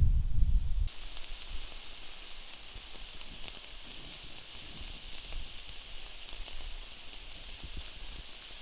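Burger patty and bacon strips frying on a grill grate over a campfire, a steady sizzle that begins about a second in. A low rumble fills the first second.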